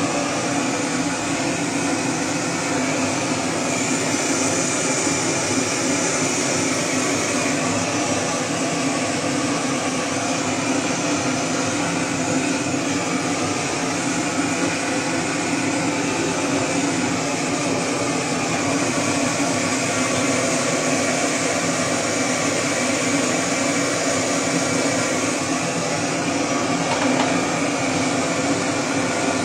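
Hose-fed gas torch burning with a steady, unbroken hiss.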